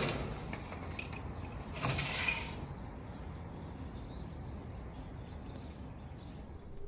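Faint outdoor ambience through a window screen: a steady low hum of distant noise, a brief louder whoosh about two seconds in, and a few faint high chirps.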